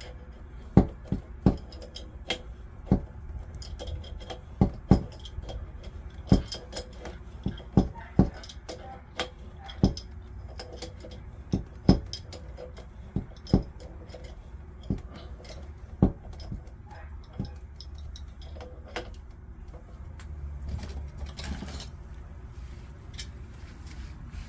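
Irregular sharp metallic clinks and taps, about one or two a second, of hand tools and fittings being handled while working on a water heater pipe; they thin out in the last few seconds.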